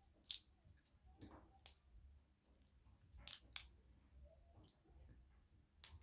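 Cooked crayfish shell being cracked and peeled apart by hand: a few short, crisp snaps, one near the start, then a pair at about a second in and another pair at about three seconds in, with faint rustling between.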